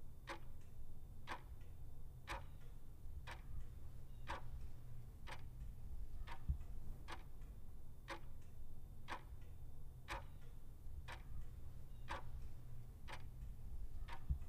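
Clock-ticking countdown sound effect, one sharp tick about every second, over a steady low hum.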